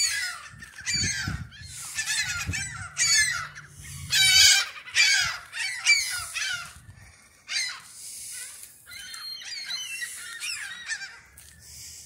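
A flock of gulls calling overhead: many harsh, repeated calls overlapping one another, loudest around four seconds in and fainter in the second half.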